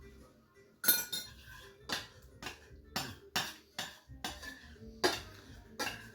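Metal spoon clinking and knocking against a pot or dish, about a dozen sharp irregular clinks starting about a second in, roughly two a second, as the sauce is stirred and tasted.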